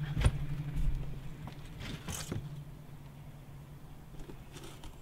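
A steady low mechanical hum, with a few short scrapes or clicks: about a quarter second in, twice around two seconds in, and once near the end.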